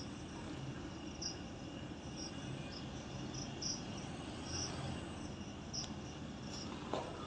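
Crickets chirping, faint short chirps repeating at an irregular pace over a quiet night-time background hiss.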